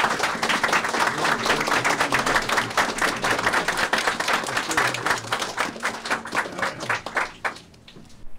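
Applause from a small group of people, hand claps that thin out to a few last claps and stop about a second before the end.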